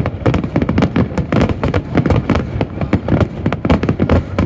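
Fireworks display in a dense, continuous barrage: many loud bangs and pops a second, overlapping with no gaps between them.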